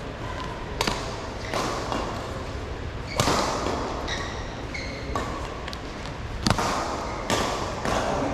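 Badminton rackets striking the shuttlecock in a doubles rally: about seven sharp cracks roughly a second apart, the loudest about three seconds in, each ringing briefly in a large hall. A few short squeaks fall between the hits.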